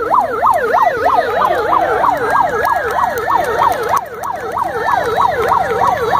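Electronic yelp siren wailing rapidly up and down, about three to four sweeps a second, set off by pressing the wrong button instead of the intended race-start signal.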